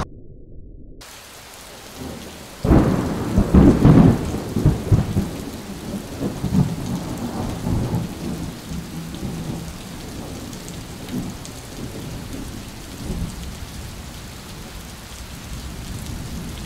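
Thunderstorm: steady rain with a sudden crackling thunderclap a little under three seconds in that rumbles away over the next few seconds.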